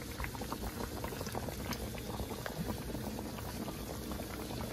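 Food cooking in a pot on the stove, bubbling steadily with many small pops and crackles.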